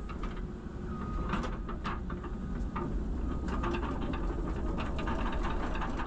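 Cat 312CL excavator's diesel engine running steadily, heard from the operator's seat, with scattered sharp ticks and taps over the rumble.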